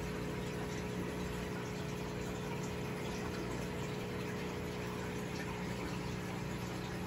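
Aquarium pump running: a steady low hum under an even rush of moving water.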